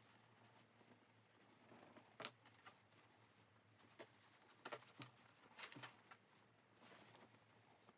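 Faint rustling and brushing of fabric tote bag pieces being handled and turned, with several brief crisp rustles scattered through.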